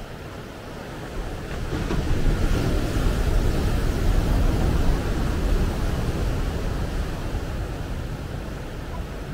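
Ocean surf: a wave breaks and washes up a sandy beach beside rocks. The surf swells about a second in, is loudest for a few seconds, then slowly fades.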